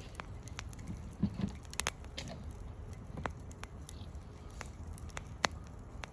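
Firewood burning in a campfire, crackling with irregular sharp pops.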